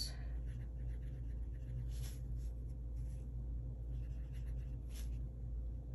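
Faint, short scratching and handling sounds, a few light scrapes about a second apart, over a steady low hum.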